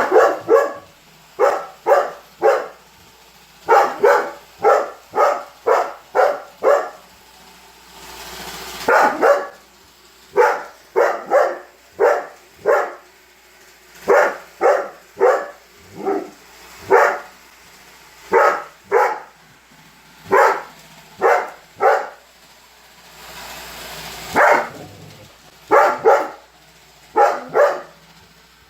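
Weimaraner barking over and over at a running Roomba robot vacuum: short, loud barks in quick runs of several, broken by short pauses.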